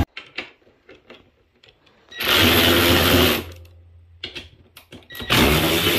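Cordless power driver with a socket extension spinning out the 12 mm bolts holding an ATV's rear rack, in two runs of steady motor whirr, the first about a second long and the second starting near the end, with small clicks of handling between.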